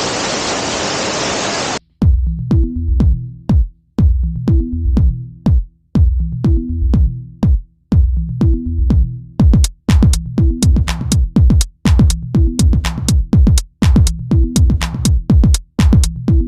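Rushing water of a waterfall, cut off sharply after under two seconds by electronic background music with a drum-machine beat and deep bass. The beat gets busier about halfway through.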